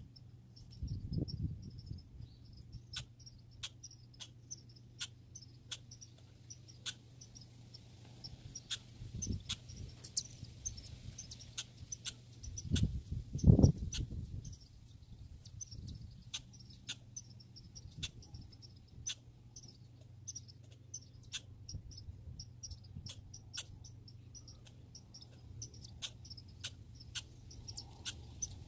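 Squirrels making a run of sharp, irregular clicks, a few a second. Low thumps come about a second in and about a third of the way through, and the loudest comes just before halfway, over a steady low hum.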